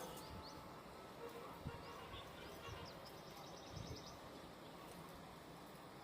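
Faint outdoor background with small birds twittering: two runs of rapid, high chirps, one at the start and another about three seconds in.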